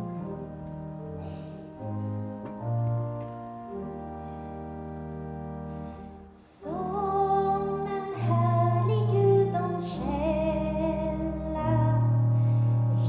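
Slow instrumental accompaniment with sustained low notes plays an introduction. About six and a half seconds in, a woman begins singing over it into a microphone, with vibrato.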